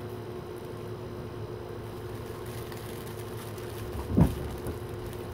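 Steady low hum of room noise, with one short sound sliding in pitch about four seconds in, the loudest moment.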